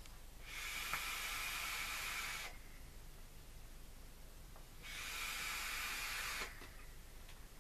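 Air hissing through the Aromamizer RDTA's nearly closed airflow ring as a vaper takes two restricted draws of about two seconds each.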